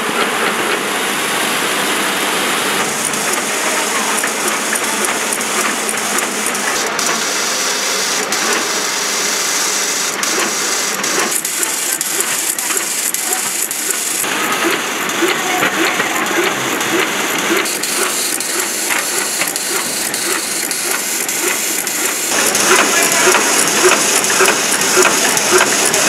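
Automatic agarbatti (incense-stick) making machines running: a steady mechanical clatter with rapid clicking strokes as sticks are pushed through the paste nozzle. The mix of machine noise shifts abruptly a few times.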